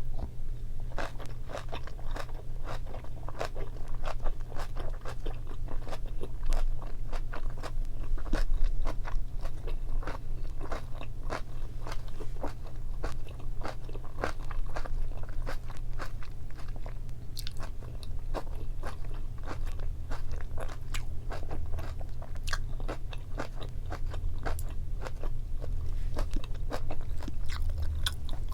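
A person chewing and biting boiled pork and kimchi, a dense, irregular run of crisp crunches and mouth clicks over a low steady hum.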